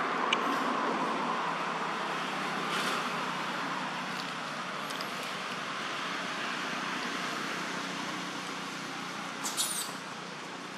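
Steady rushing outdoor background noise that slowly fades, with a brief high squeak near the end.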